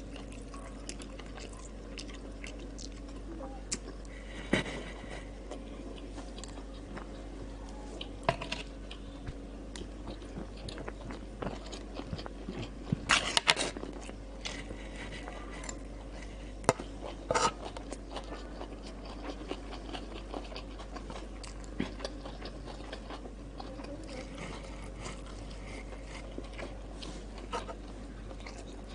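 Close-up eating sounds: biting and chewing on a meal of breaded fried chicken cutlet, rice and crisp green salad. Scattered short clicks of a metal spoon against the glass platter are mixed in, thickest about halfway through.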